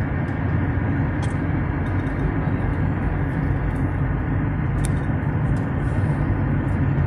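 Steady road and engine rumble of a car driving along a highway, heard from inside the cabin, with a few faint clicks.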